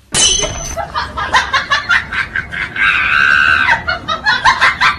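Loud, shrill cackling laughter, with a long scream-like cry about three seconds in.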